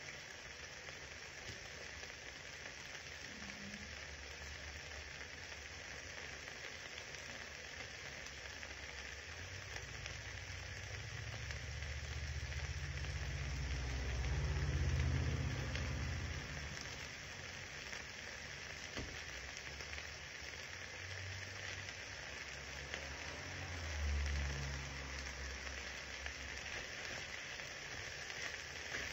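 Meat and vegetables sizzling steadily in a skillet on the stove. A low rumble swells about halfway through and briefly again near the end, and it is the loudest thing heard.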